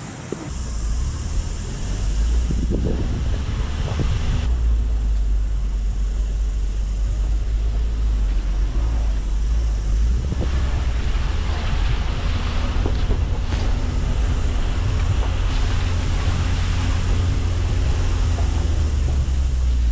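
Mitsubishi L300 Delica 4WD van driving along a rough dirt track, picked up by a camera mounted up front. A heavy, steady low rumble of vehicle running and wind buffeting the microphone starts about half a second in, with a few knocks as the van goes over bumps.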